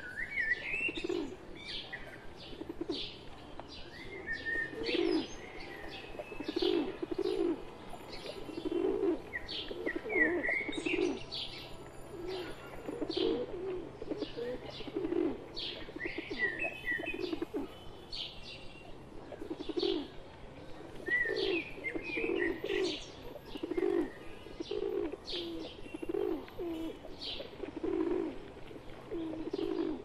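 A flock of rock pigeons cooing, a low note repeated about once a second, with many short, high chirps from other birds over it.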